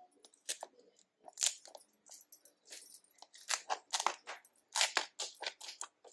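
Thin plastic pouches crinkling as hands handle and open them, in quick irregular crackles.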